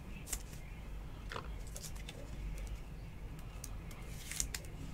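Faint, scattered clicks and light rustles of trading cards and plastic card holders being handled, over a low steady hum.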